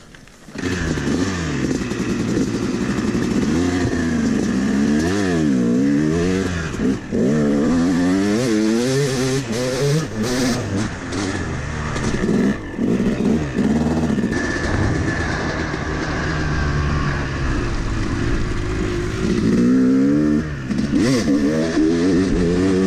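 250 cc two-stroke Yamaha dirt bike engine being ridden hard, revving up and down again and again as the throttle opens and closes, from about half a second in.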